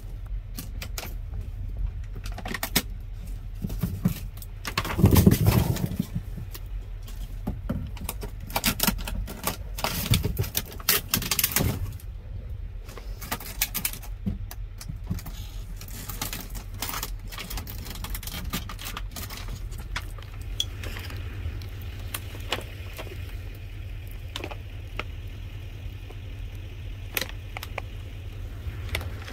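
Hands rummaging through cardboard boxes and plastic food packaging: rustling, crinkling and knocks, loudest about five seconds in and again around ten seconds, over a steady low hum.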